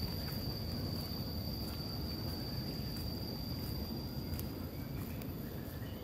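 An insect singing one steady high-pitched tone that stops about two-thirds of the way through, over a steady low rushing.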